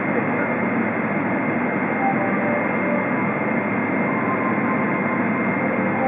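Boeing 777-300 jet engines running at taxi power, heard inside the passenger cabin: a steady rush with a constant high whine over it.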